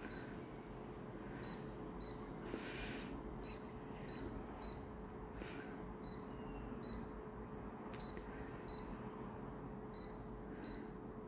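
Short high beeps from a photocopier's touchscreen as its settings are tapped, many of them at irregular intervals, over a steady faint hum.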